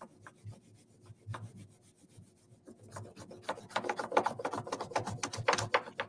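Wax crayon rubbed back and forth over paper laid on a leaf on a hard table, making a leaf rubbing. A few scattered scratchy strokes at first, then rapid, louder strokes from about halfway through.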